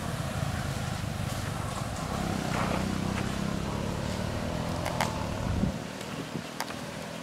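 Low, steady rumble of an engine running, which cuts off abruptly about three-quarters of the way through, with a few sharp clicks near the end.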